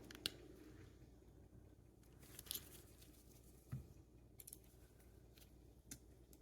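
Faint, scattered clicks and light scrapes of small parts being worked by hand: the rear slide cover plate being pushed out of a Glock 43X slide while the plastic spacer sleeve is held back. The clearest clicks come about two and a half and four seconds in.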